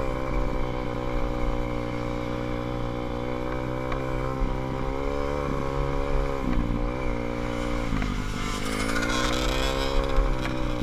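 SSR150 pit bike's single-cylinder four-stroke engine running at part throttle, heard from on the bike. The revs dip briefly about six and a half seconds in, drop again around eight seconds, then climb back up.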